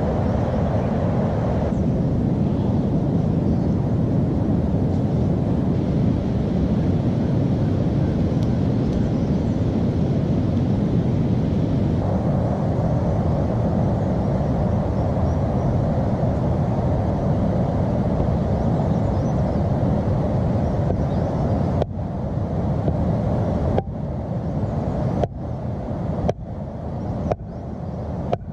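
Steady rushing of flowing river water. The sound breaks off abruptly several times in the last few seconds, changing level at each cut.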